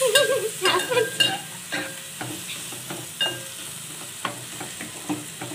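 Steel spatula scraping and clicking against an aluminium pot while onions and gongura leaves are stirred as they fry, with a light sizzle underneath. The clicks come thick and fast in the first couple of seconds, then more sparsely.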